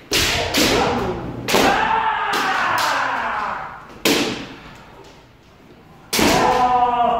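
Kendo sparring: sharp cracks of bamboo shinai strikes and stamping footwork on a wooden floor, with long drawn-out kiai shouts from the fighters, one about a second and a half in and another about six seconds in, echoing in a hall.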